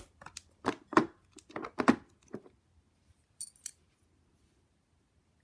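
A small catch being worked by hand and tried shut, which does not close properly. There is a run of sharp clicks and taps over the first two and a half seconds, then two lighter, higher clicks.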